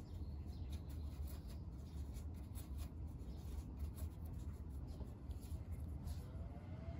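Faint scratchy brush and hand noises while working watercolour, with sleeve rustle as the arm reaches past, over a low steady hum.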